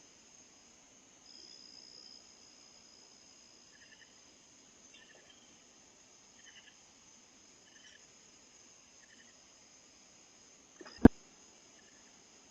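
Crickets trilling steadily and faintly, with a fainter short chirp repeating about every second and a half. One sharp knock near the end is the loudest sound.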